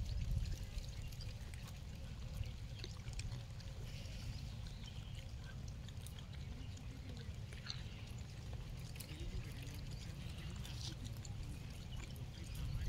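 Outdoor ambience: a steady low rumble of wind on the microphone, with faint scattered ticks and rustles.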